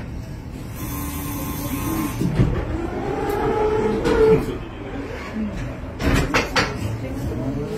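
Historic tram running, heard from inside the passenger car: a steady low rumble of wheels on rails and running gear, with some pitched whine in the first half and a quick cluster of sharp knocks about six seconds in.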